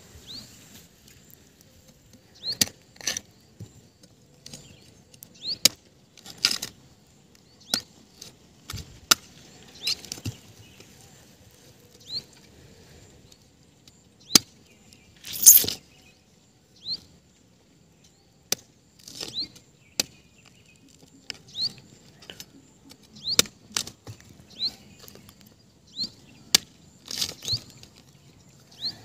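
Curved knife chopping into palmyra palm fruits (nungu) to open them: irregular sharp cuts every second or two, one louder chop about halfway through.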